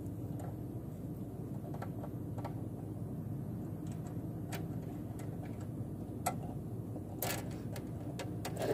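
A steady low hum, with scattered light clicks and taps that come more often and louder over the last second or so.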